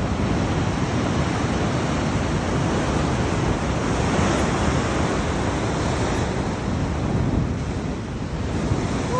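Heavy ocean surf breaking and churning onto the beach, a steady rush of white water, with wind on the microphone.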